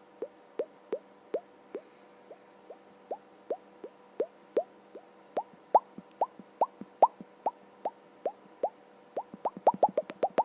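Water dripping from a tap into a sink: a run of single drops, each a short plop rising in pitch, at about two to three a second, coming faster and closer together near the end.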